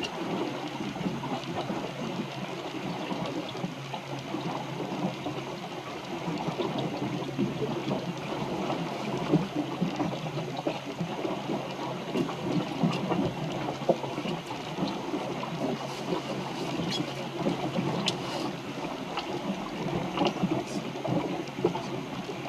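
Water splashing and gurgling steadily along the hull of a small wooden sailboat under sail, with small irregular splashes throughout.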